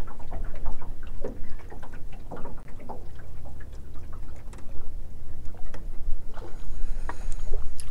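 Small waves lapping and slapping against the hull of a jon boat in irregular little splashes, over a steady low rumble of wind on the microphone.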